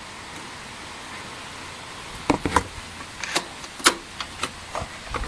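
Hand tools clinking and knocking against a scooter's metal engine parts: a run of sharp, irregular clicks from about two seconds in, the loudest near the four-second mark, over a steady background hiss.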